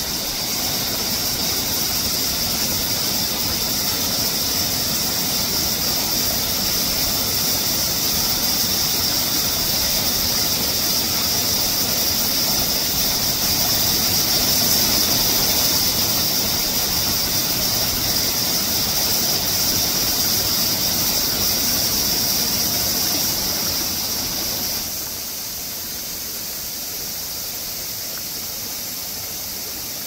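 Cicadas droning steadily and high over the even rush of a mountain stream. About 25 seconds in, the drone fades and the overall sound drops, leaving mostly the water.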